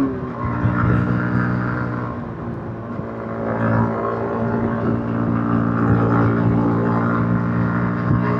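Yamaha MT-15's single-cylinder engine through its stock exhaust while riding. The engine note drops sharply as the throttle closes at the start, runs lower and quieter for a couple of seconds, then picks up again and holds steady.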